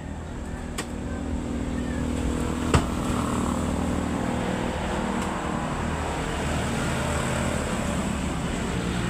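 A motor vehicle engine running steadily, growing louder over the first two seconds, with one sharp click about three seconds in.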